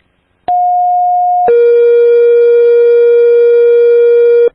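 Fire dispatch two-tone sequential page over scanner radio: a steady higher tone for about a second, then a lower steady tone for about three seconds that cuts off sharply. It alerts the fire stations to a full response call.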